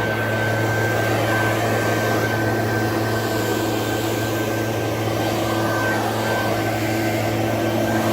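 Small gas-engine power tool running steadily at high speed, a constant engine hum with no revving.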